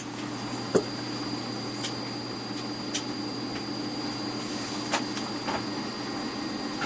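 Stepper motors of a home-built CNC router, driven by L297/L298 driver chips, running with a steady hum and a high whine as an axis is driven, with a few sharp clicks.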